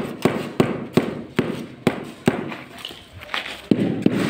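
Rubber mallet tapping a large floor tile down into its mortar bed: a steady run of dull knocks, about two to three a second, with a short pause about two and a half seconds in.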